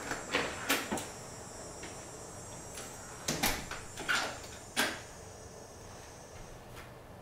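A series of sharp knocks and clacks in two clusters: three about a second in, then four between about three and five seconds in, the last the loudest. A faint, high, steady whine sits underneath and stops near the end.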